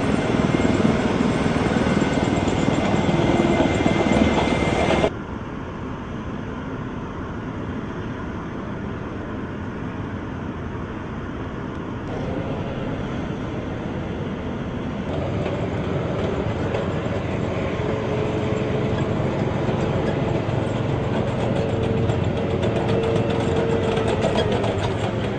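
M1A1 Abrams tank's gas-turbine engine running as the tank moves, a continuous mechanical noise. It drops abruptly in level about five seconds in, and a steady whine comes through in the later part.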